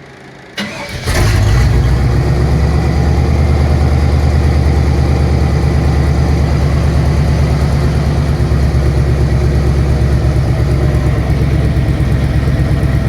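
1962 Chevy C10's small-block Chevy V8 starting after an oil change: a short burst of cranking about half a second in, catching about a second in, then idling loudly and steadily with an even, low pulse.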